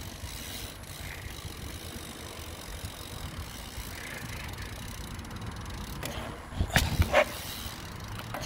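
Mountain bike being ridden, picked up by a phone mounted on the bike: a steady low rumble of riding noise, with a few sharp clatters about seven seconds in.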